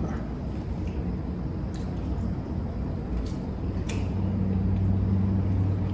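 Quiet eating sounds from a seafood meal: chewing and a few light clicks as shells and food are handled, over a low steady hum that grows a little stronger near the end.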